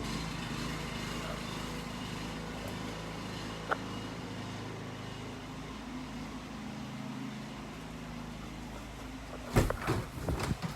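Hoverboard's electric hub motors humming steadily while it is ridden. Near the end come a few loud knocks.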